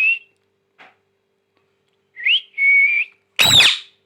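A pet parrot whistling: two short two-part whistles, each a quick rising note followed by a level held tone, then a loud harsh squawk near the end.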